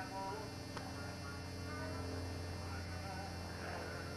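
Steady low electrical hum, with faint scattered short tones above it.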